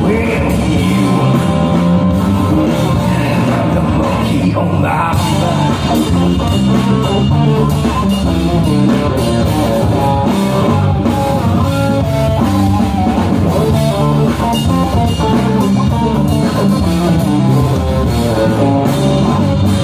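Live rock band playing: electric guitars over a bass line and drum kit, at a steady loud level.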